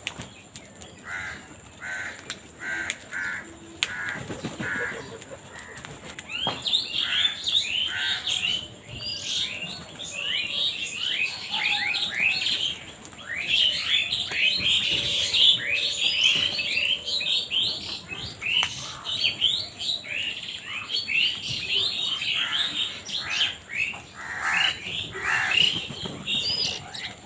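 Birds calling, crows among them: a run of about eight evenly spaced calls in the first five seconds, then from about six seconds a dense, overlapping chorus of many birds chirping and squawking together.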